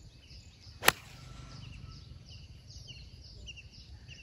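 Golf club striking a ball off the fairway turf: one sharp crack about a second in. Repeated high bird chirps continue around it.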